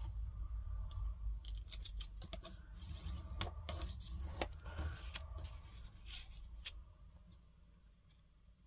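A bone folder scraping along a plastic ruler to score fold lines into kraft cardstock, with small clicks and taps as the ruler and tools are handled. It fades out over the last two seconds or so.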